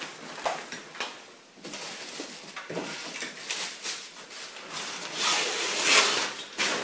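A fabric carry bag pulled down over a collapsed pop-up display frame: rustling and scraping, loudest for a second or so near the end. A few light knocks and clicks come in the first second or two.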